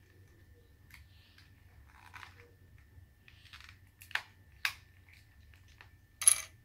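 Fingers picking and peeling the plastic wrapping of a toy surprise ball: scattered crinkles and crackles, two sharp snaps about four and a half seconds in, and a louder crackle near the end.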